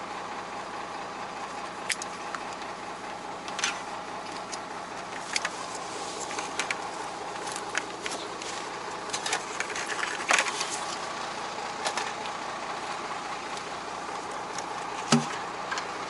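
Diesel engine of a Beaver motorhome idling steadily as it warms up after a cold start, with light clicks and clinks of battery-charger clamps and cables being handled.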